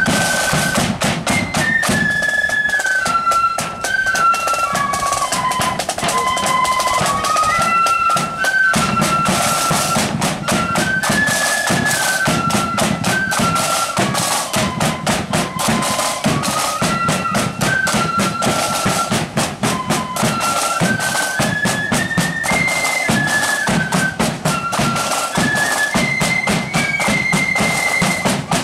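Instrumental music: a high wind-instrument melody moving up and down in steps over a steady low accompaniment and fast drumming.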